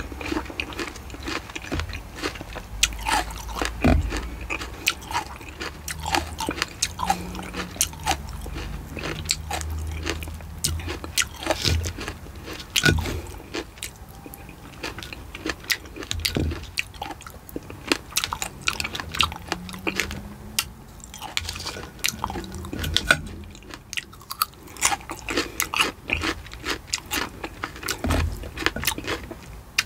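Close-miked eating: a person chewing and biting mouthfuls of whipped cream and fresh berries, with dense wet mouth clicks and small crunches.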